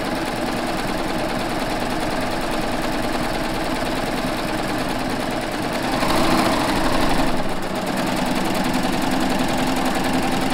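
Serger running steadily as it stitches a rolled-hem seam through embroidered mesh, briefly louder about six seconds in.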